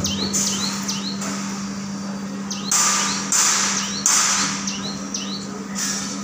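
Hydraulic scissor lift being lowered with a small pickup truck on its platform: a steady low hum throughout, broken by several sudden bursts of hiss. Short rising bird chirps come and go over it.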